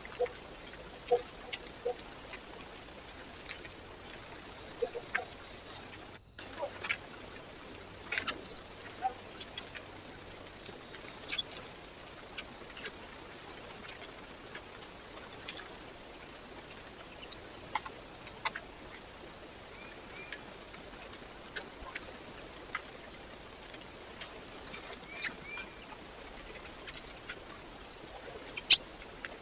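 Birds at a bird feeder: scattered taps and clicks with a few short chirps, over the steady hiss of a trail camera's microphone. One sharper click near the end is the loudest.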